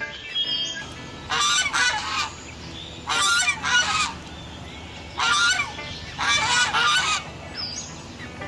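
Domestic goose honking: a run of short, harsh honks, mostly in pairs, spaced a second or two apart.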